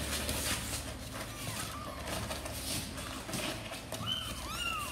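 Young kittens mewing: short, high mews that rise and fall in pitch, faint at first and louder near the end, over the scratching of claws on a cardboard box.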